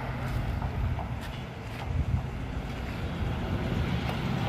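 A car driving past, a steady low rumble of engine and tyres, with wind on the microphone.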